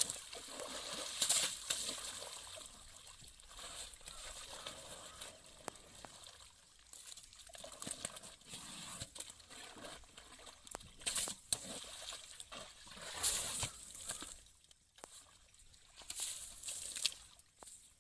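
An Asian elephant's trunk working in shallow pond water, sloshing, trickling and splashing in irregular bursts as she draws up water.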